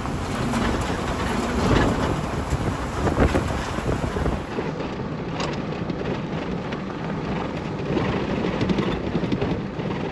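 Jeep Rubicon driving on a dirt road: engine and tyre rumble with wind buffeting the microphone. About four and a half seconds in it changes to a quieter, thinner road noise heard from inside the cab.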